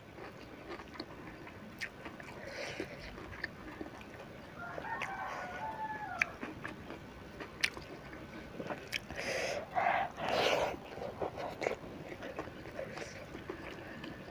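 Close-up crunching and chewing of crispy fried sepat (gourami) fish eaten by hand, with scattered crisp cracks as bits break. A rooster crows in the background, with a drawn-out call about five seconds in and louder harsh calls near the middle.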